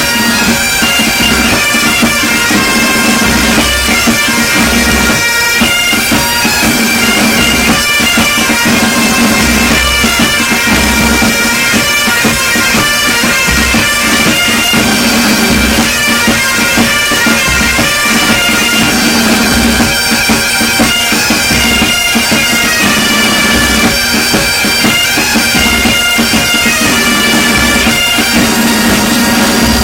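Military pipe band: bagpipes playing a tune over their steady drone, with bass drum beats beneath.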